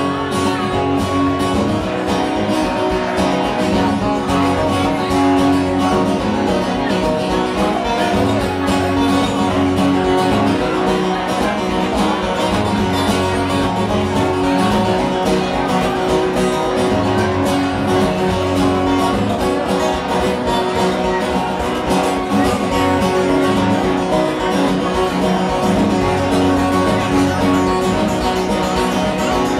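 Two acoustic guitars strummed together in a steady rhythm, played live.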